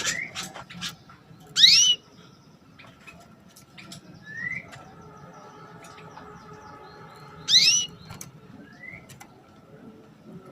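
Female canary giving short, upward-sweeping 'cuit-cuit' calls: two loud bursts of chirps about six seconds apart, with softer single chirps between. These are a hen's calls to a male, used to get him singing and in breeding condition.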